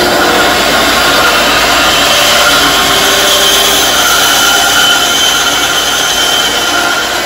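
SKIL 9-inch 120-volt bandsaw running at full speed, its blade cutting through a log nearly 3 inches thick to take off a half-inch slice: a steady whir with a faint high whine.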